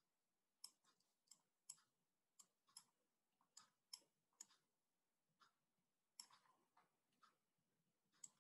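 Faint, irregular clicks, about a dozen, from a stylus tapping and stroking on a tablet as a diamond symbol and the letters 'Fa' are handwritten.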